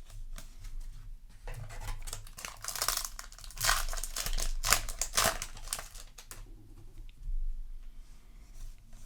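Foil trading-card booster pack being torn open and its wrapper crinkled, a run of rustling and tearing noises that is loudest in the middle, then quieter handling of the cards.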